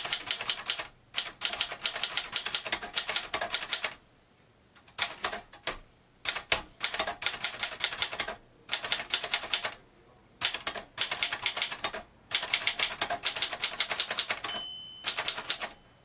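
Typing on a 1949 Moskva Model 2 manual typewriter: runs of rapid key and typebar strikes broken by short pauses. Near the end, a brief ring from the margin bell as the carriage nears the end of the line.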